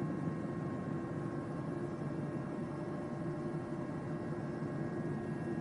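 Helicopter in flight heard from inside the cabin: the turbine engine and rotor run in a steady dense rumble, with a few steady whining tones above it.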